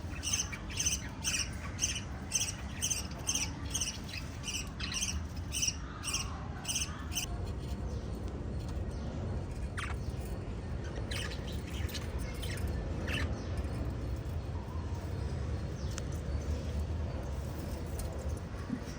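Pet lovebirds calling: a rapid, regular run of short, sharp chirps, about two a second, that stops about seven seconds in. After that only scattered chirps remain over a steady low rumble.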